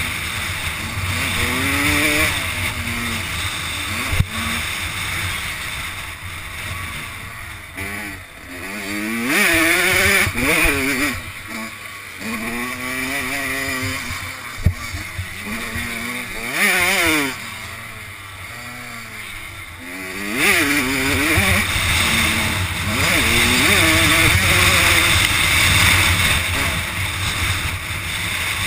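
Kawasaki KX85 two-stroke motocross bike engine revving up and down repeatedly as it is ridden hard through the gears, with the throttle backed off now and then. Two sharp knocks, at about 4 and 15 seconds in.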